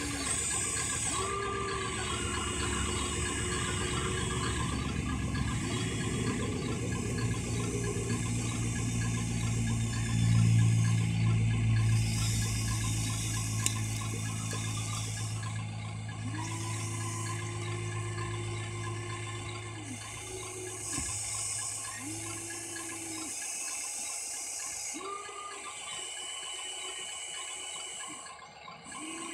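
Huina 1593 RC excavator's electric motors and gearboxes whining as the boom, arm and bucket move, each whine rising as a motor starts and falling as it stops, over and over. There is a louder rushing stretch about ten seconds in, as a bucket of dirt is tipped into the RC dump truck's bed.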